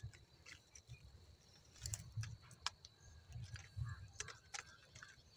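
Faint, irregular small clicks and rustles with a few soft low thumps, like close handling noise, over a faint steady high tone.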